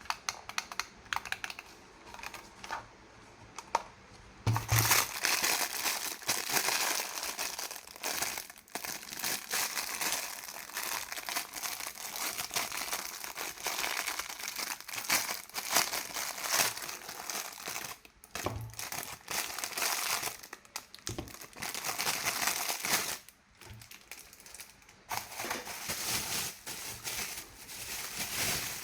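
Toy packaging being handled and unwrapped: dense crinkling and rustling with many small clicks, beginning about four seconds in after a few lighter clicks, with short pauses along the way.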